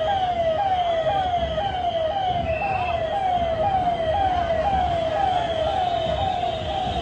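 Ambulance siren sounding a fast, repeating wail: a tone that falls in pitch about twice a second, without a break.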